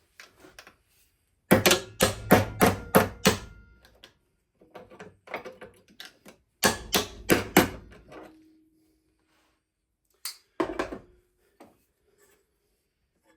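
Hammer blows on metal: a quick run of about six strikes, a pause, then four more and a couple of lighter knocks near the end, some leaving a short metallic ring.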